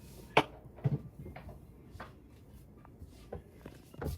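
A handful of light knocks and clicks at irregular intervals, the sharpest about half a second in and again near the end, over a faint background.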